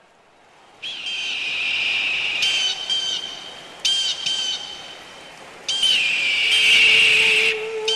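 High whistled melody: a long high note that slides up at its start, a few short notes, then a second long note. A low held note comes in under it near the end, opening the next piece of music.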